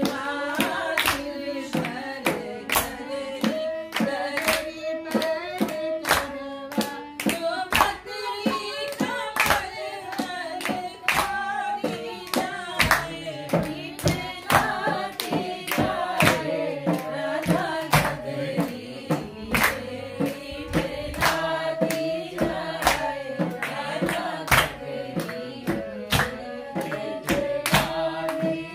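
Singing of a traditional Holi folk song (hori) with dholak drum, harmonium and bamboo flute, and hand-clapping keeping a steady beat of about two claps a second.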